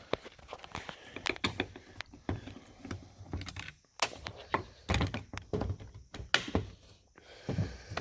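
Irregular clicks, taps and knocks of a screwdriver and metal and plastic parts being worked inside a 2006 Ford Focus door, with a few heavier thunks, while the old outside door handle is being removed.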